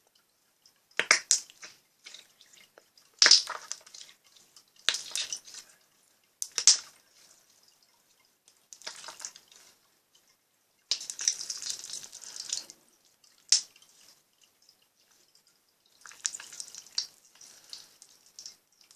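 Slime being squeezed and pressed so that trapped air bubbles pop and crackle. The crackling comes in about eight separate bursts of wet clicks and pops, each lasting about half a second to two seconds, with quiet gaps between them.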